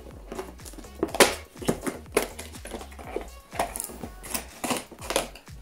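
A cardboard advent calendar door is pried open by hand and the product inside is pulled out: a run of irregular crackles and snaps of card and packaging, the loudest about a second in.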